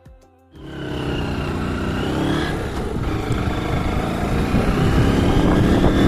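A motor vehicle engine running, with dense rushing noise and a slowly wavering pitch over it. It starts suddenly about half a second in.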